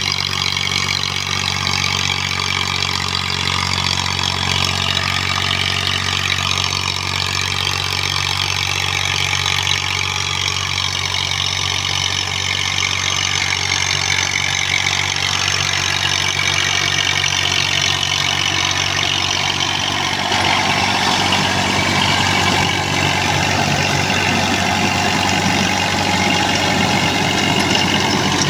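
Massey Ferguson 240's Perkins three-cylinder diesel running steadily under load as it drives a rotavator tilling the soil. It grows somewhat louder about two-thirds of the way in as the tractor comes closer.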